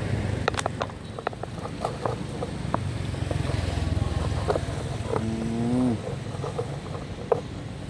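Outdoor ambience: a low steady rumble that fades after about six seconds, with scattered sharp clicks and crackles. About five seconds in, a short pitched tone rises slightly and lasts under a second.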